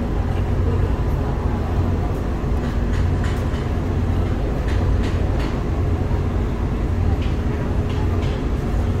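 Ferry's engines running with a steady low rumble and hum, heard from the open deck.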